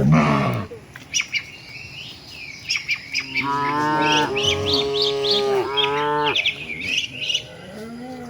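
Village cattle mooing: a low moo right at the start, then a long drawn-out moo of about three seconds in the middle and a fainter one near the end, with small birds chirping.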